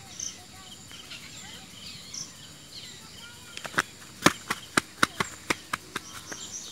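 A quick run of about a dozen sharp metallic clicks and taps, roughly four a second, starts about three and a half seconds in, as the fuel injector of a single-cylinder diesel engine is worked on with a spanner and by hand. Before that, only faint bird chirps are heard in the background.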